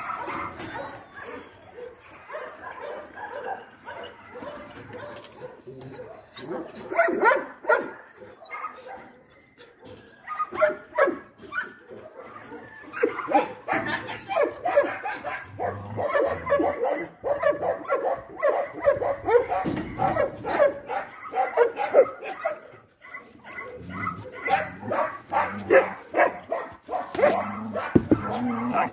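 Dogs barking in short, quick barks. The barks are scattered at first and become an almost constant string from about halfway through.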